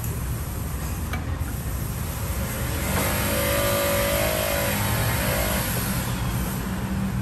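A motor vehicle engine running steadily with a low rumble. About three seconds in, a louder whine comes in over it.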